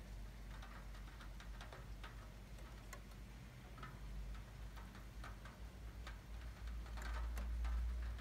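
Scattered raindrops dripping and tapping at irregular intervals, over a faint low rumble that swells slightly near the end.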